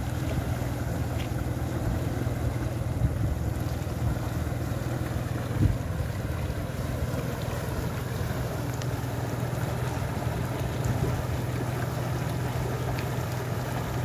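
Steady rush of turbulent water pouring out of a culvert into an irrigation canal, with a low rumble of wind on the microphone. A single brief knock about five and a half seconds in.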